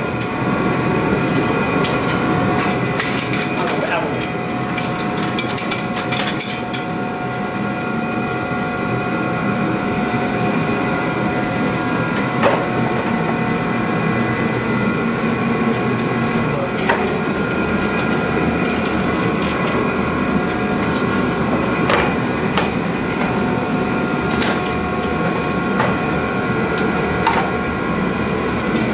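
A steady mechanical hum with several held tones, under scattered knocks and taps as plastic and carbon fibre bumper parts are handled and fitted.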